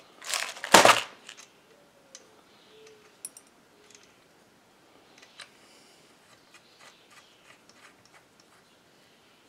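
Hand-handling of tools and loose hardware at a chainsaw: a brief loud rattle near the start, then scattered faint clicks and taps as washers and nuts are fitted on the saw.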